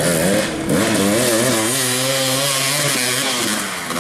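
Dirt bike engine revving, its pitch wavering up and down. It dips briefly about half a second in, then is held at high revs and eases off near the end.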